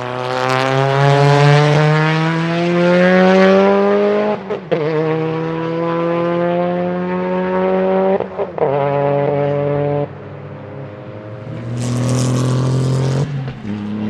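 Race car engine under full throttle, its pitch climbing steadily through the gears with brief breaks at upshifts about four and a half and eight and a half seconds in. It backs off about ten seconds in, then pulls hard again near the end with a short burst of hiss.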